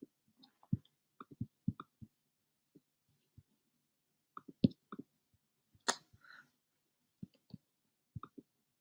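Computer mouse clicking, single and in quick pairs at an irregular pace, with one louder, sharper click about six seconds in.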